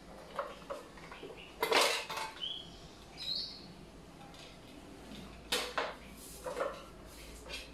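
Clicks, knocks and a clatter of plastic and metal as a Philips air fryer's basket is unlatched and pulled from its drawer and handled; the loudest clatter comes about two seconds in, with two short high squeaks just after and a pair of sharp clicks later on.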